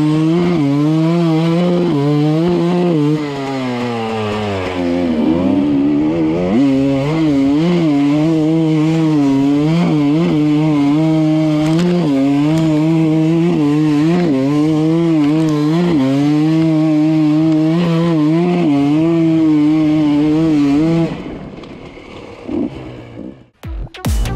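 Enduro dirt bike engine running on a climb, its revs held fairly steady with small throttle wobbles. About 4 to 5 seconds in the revs fall away and then climb back. The engine sound stops about 21 seconds in, and electronic music starts near the end.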